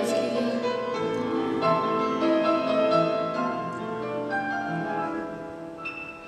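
Live stage band playing an instrumental passage, piano to the fore with sustained chords, without singing; it grows quieter near the end.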